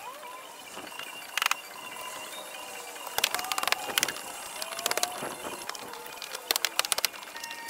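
Scattered sharp knocks and clicks from hammer work on a wooden shed frame, some coming in quick clusters.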